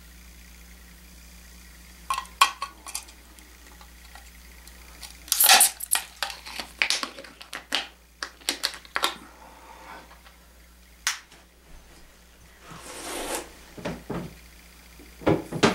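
Sharp metallic clicks and clinks of a beer bottle opener working at a bottle cap without getting it off, in scattered groups with a dense run in the middle and a brief rustle near the end.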